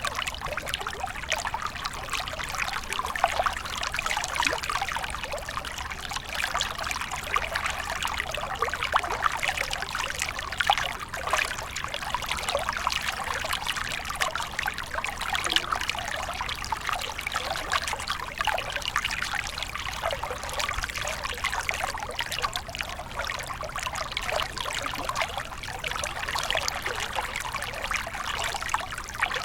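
A small stream of water flowing steadily: a continuous trickling and babbling with a dense flicker of tiny splashes.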